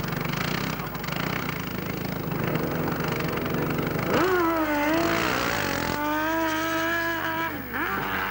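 Drag-racing motorcycle engine running at the start line, then launching: about four seconds in the revs climb sharply and fall back. After that the engine holds a high steady pitch under hard acceleration, dipping and rising again near the end as it changes gear.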